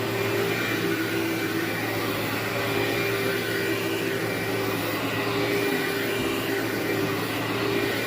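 Bagless vacuum cleaner running steadily as it is pushed over carpet, a constant motor hum and whine over the rush of suction air.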